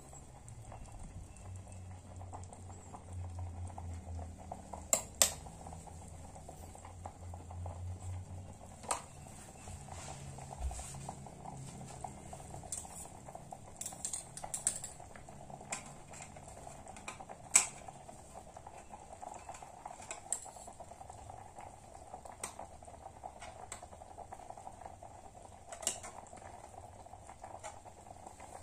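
Spaghetti in water boiling in an enamel pot over a portable spirit stove made from a used can: a steady bubbling with sharp ticks scattered through it.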